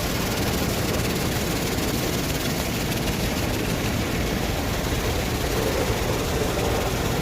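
Automatic car wash machine running: a steady, loud rush of noise over a low rumble, unchanging throughout.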